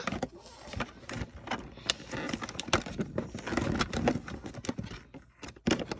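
Toy packaging being handled and pulled open by hand: irregular crackling, rustling and sharp clicks.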